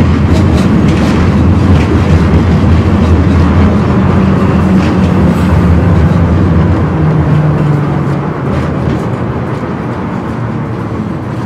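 Tram running along city tracks, heard from inside the car: a steady low rumble of wheels on rails with a faint motor hum. It eases off a little in the last few seconds.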